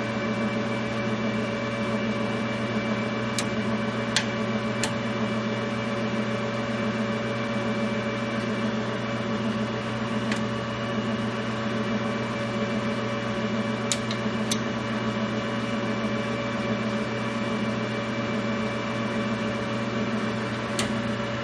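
LeBlond Regal engine lathe running with its carriage under power feed toward the chuck: a steady geared hum with a few light clicks.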